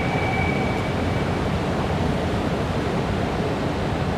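Steady rushing ambience of an empty underground MRT platform, with a faint high whine that fades out about a second in.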